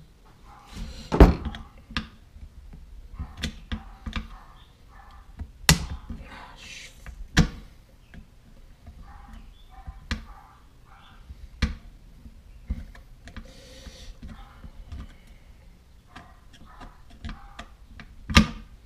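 Irregular clicks and knocks of a hand screwdriver working the screws on a Saiga rifle's receiver and stock, with the rifle handled on a wooden workbench. A handful of sharper knocks stand out among lighter clicking.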